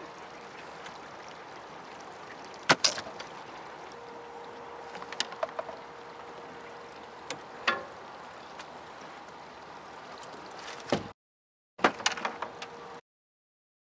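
Sharp knocks and clatters of skipjack and tackle against the aluminium jon boat's deck, a handful of separate hits over a steady rush of fast dam-tailwater current and a faint steady hum. The sound drops out completely twice near the end.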